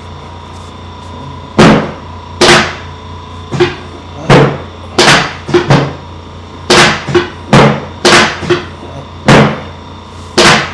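A quick run of about fourteen sharp whacks from chiropractic adjustments on a patient's back, irregularly spaced and some in quick pairs, over a steady low hum.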